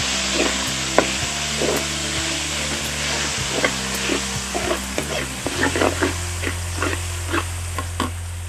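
Food sizzling in hot oil in a metal wok while a metal spatula stirs it, scraping and clicking against the pan. The clicks come more often in the second half.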